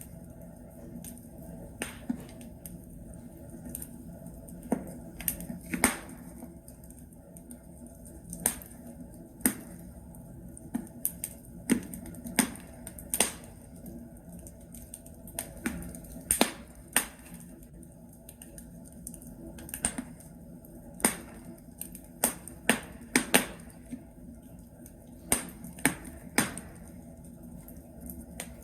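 Wood logs crackling and popping in a fireplace: irregular sharp snaps, some in quick clusters, over a low steady hiss of the fire.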